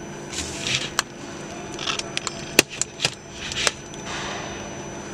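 Steady hum of a running CNC machine. Over it comes an irregular run of sharp clicks and short hissing bursts, from about half a second in to nearly four seconds in, with the loudest click near the middle.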